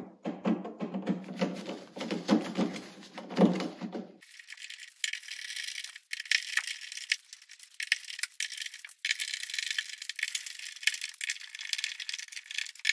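Rapid, irregular clicking and rattling of a hand screwdriver turning the mounting screws of wall switches into their box. About four seconds in, the sound turns thin and tinny, with only the high part of the clicking left.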